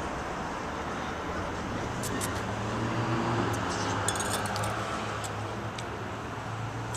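Steady street traffic noise, with a vehicle's low engine hum swelling and passing through the middle. A few faint, light clicks come about two seconds in and again around four seconds in.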